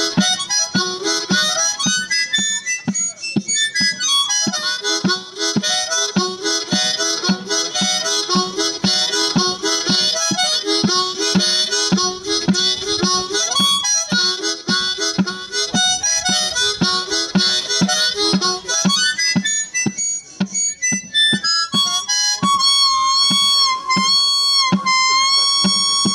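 Solo harmonica played with an even pulsing rhythm of about two to three strokes a second. From about 22 seconds in it holds one long, wavering high note.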